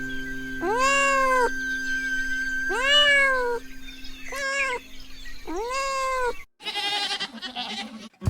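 Domestic cat meowing four times, each meow rising and then falling in pitch. A different, higher-pitched sound follows near the end.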